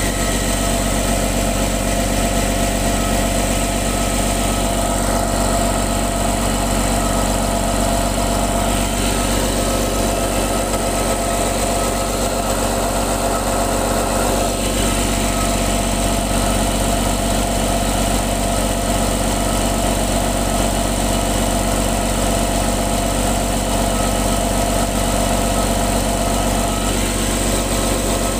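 Caterpillar diesel engine idling steadily, heard up close in its engine bay. It puts out heavy exhaust smoke, which the owner puts down to a faulty fuel injector.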